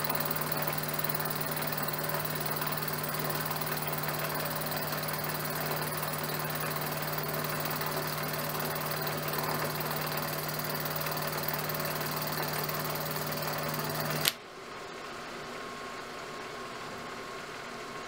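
Milling machine running steadily, a 3/4-inch two-flute end mill plunge-cutting aluminum with the quill feed. About fourteen seconds in the sound cuts off suddenly with a click, leaving a fainter steady hum.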